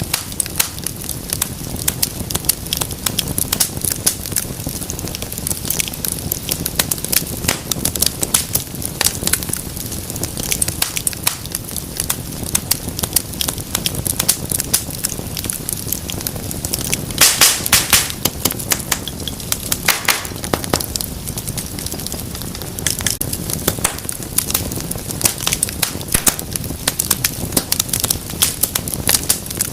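Wood fire burning in a fireplace, crackling and popping irregularly over a low steady rumble of the flames, with a brief flurry of louder pops a little past the middle.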